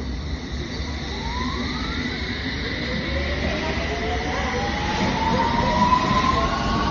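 London Underground District Line S7 Stock train pulling out of the platform: its traction motors give a whine that rises steadily in pitch as it accelerates, over a low rumble.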